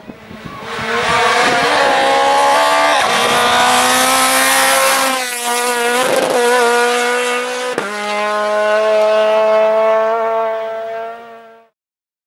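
Rally car engine running hard at high revs, its pitch stepping down a few times, then fading out near the end.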